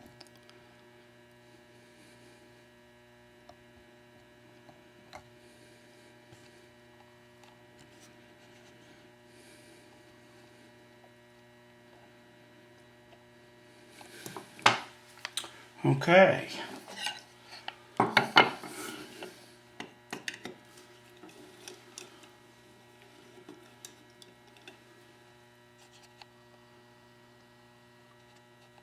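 Metal hardware handled on a workbench: scattered faint clicks over a steady electrical hum, with a burst of metallic clattering and knocks about halfway through.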